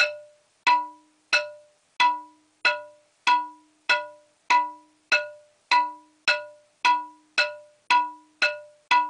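Wooden percussion boards, txalaparta-style, struck with a stick in a slow, even beat of about one and a half blows a second. Each blow rings with a clear, pitched wooden tone that dies away before the next.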